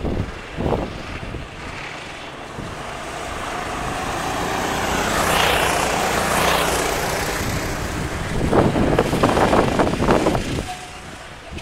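Sodi RT8 rental go-kart engine driving past: its whine swells to its loudest about six seconds in, then drops in pitch and fades as the kart moves away. Gusts of wind buffet the microphone near the end.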